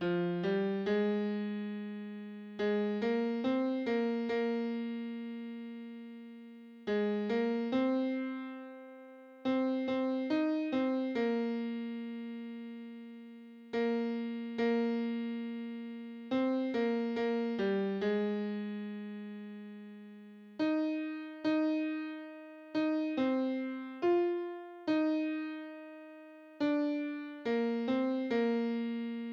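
Piano sound playing a single melody line in the tenor range, one struck note at a time, with several long held notes that slowly die away: the tenor part of a four-part choral arrangement, played alone for part practice.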